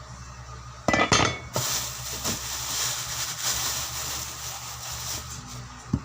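Kitchen clatter: a quick run of metal and glass knocks about a second in, like utensils and dishes being handled. It is followed by a steady high hiss lasting about four seconds.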